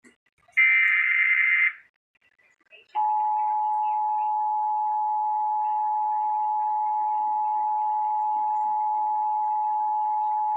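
Emergency Alert System broadcast signals: about half a second in, a roughly one-second burst of the raspy, warbling SAME digital data header. From about three seconds in comes the steady two-tone EAS attention signal (853 and 960 Hz sounding together), which announces the severe thunderstorm warning that follows.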